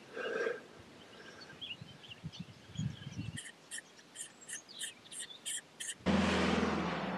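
Outdoor ambience with small birds chirping, including a run of short high repeated calls. About six seconds in, a loud rushing noise with a low steady hum cuts in abruptly.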